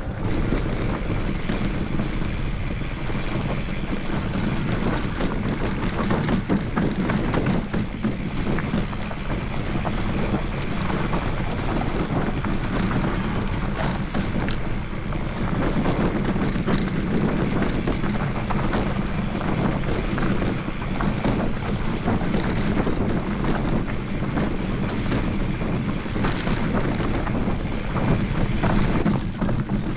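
Wind rushing over the microphone of a camera riding on a mountain bike, with the bike's tyres rolling and the frame rattling and knocking over a rough dirt trail.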